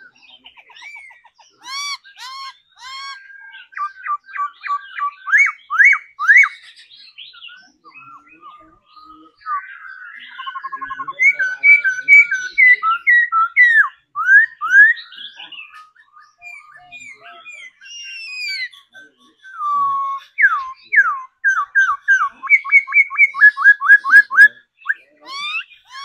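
Caged laughingthrush (khướu) singing a long, varied song of loud whistled phrases, broken by runs of rapid repeated notes, about five or six a second, early in the song and again near the end.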